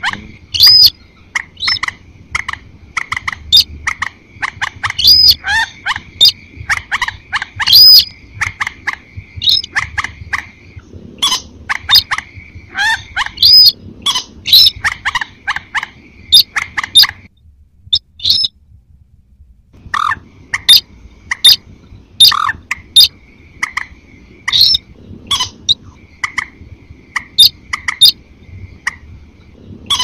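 Lure recording of sintar crake and moorhen calls mixed together: a rapid run of short, sharp calls over a steady high note, broken by a pause of about two seconds a little past halfway.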